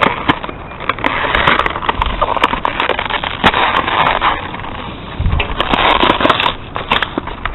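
Toy packaging being handled and torn open, crackling and rustling with many sharp clicks.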